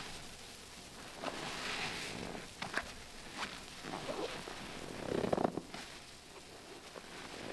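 Soaked sponge being squeezed by hand, a run of wet squelches and crackles as liquid is pressed out, the longest and loudest about five seconds in.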